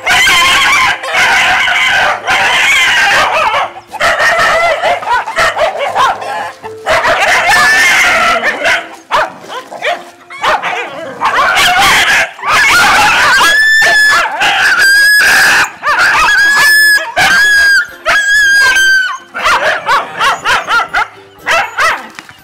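A dog barking and howling in loud, choppy bursts over background music. About halfway through come five high, drawn-out cries in a row.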